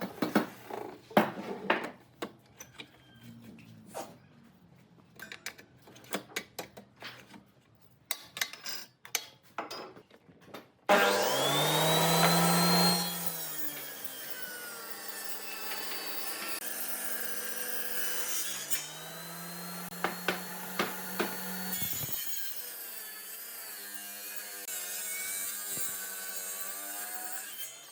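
Woodworking sounds: scattered knocks and taps on wood, then about eleven seconds in a power saw starts cutting wood and runs steadily, its motor pitch rising and falling as it works.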